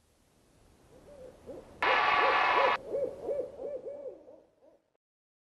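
Owl hooting in a quick run of short, arching hoots, about three a second, fading away near the end. A loud burst of hiss lasting about a second lies over the hoots about two seconds in.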